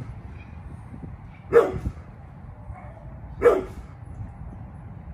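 Pit bull barking: two single, short barks about two seconds apart.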